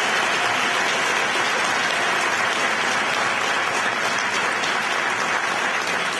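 Audience applauding: many people clapping at once, a steady, dense patter of hand claps.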